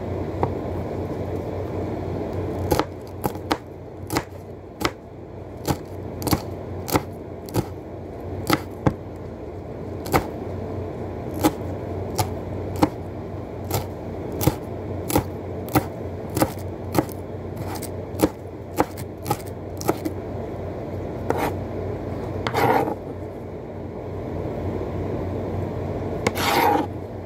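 Kitchen knife chopping green vegetables on a wooden cutting board: a run of sharp knocks, about one every half second to second, then the blade scraping across the board twice near the end. A steady low hum underneath.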